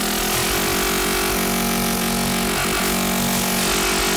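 Eurorack modular synthesizer soundscape: a dense, hissing wash of noise over a low steady tone that drops out and comes back a few times, with a fast flickering pulse in the bass.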